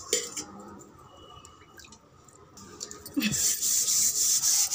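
Hands scrubbing a copper pot with Pitambari cleaning powder: quiet handling at first, then a steady gritty rubbing that starts about three seconds in.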